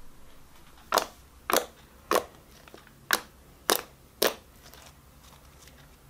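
Fluffy shaving-foam slime pressed and folded by fingers on a tabletop, popping as trapped air bursts: six sharp pops, in two groups of three about half a second apart.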